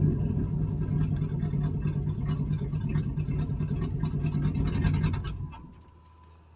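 Carbureted engine of an old Chevrolet Suburban running steadily, then dying out about five and a half seconds in: the hard-starting engine stalls.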